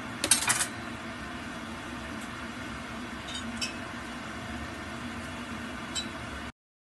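Steady kitchen room noise with a brief run of light clinks, like glass or crockery being touched, shortly after the start, and a couple of faint clicks later. The sound cuts to silence near the end.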